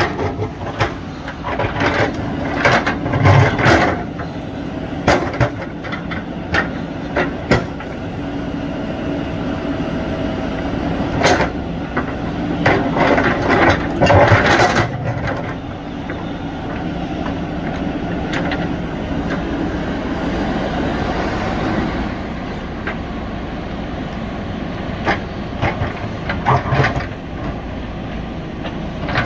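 JCB 3DX backhoe loader's diesel engine running steadily, with bunches of sharp knocks and clatter as the bucket strikes and scrapes rock. The knocks are loudest early on and again about halfway through, with a few more near the end.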